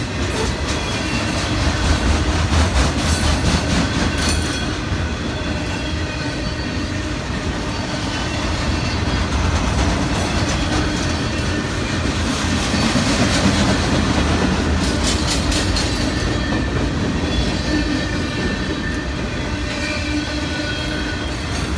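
A freight train rolling past: a steady rumble of steel wheels on rail, with stretches of clickety-clack a few seconds in and again about fifteen seconds in, and a faint high wheel squeal.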